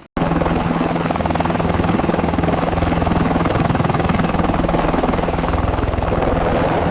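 A loud, steady mechanical drone with a fast flutter and a constant low hum. It cuts in abruptly just after the start.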